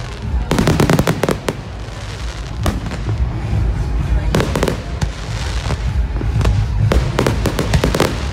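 Display fireworks shells bursting overhead: bangs and crackling come in several clusters, about a second in, in the middle and near the end, over a steady low rumble.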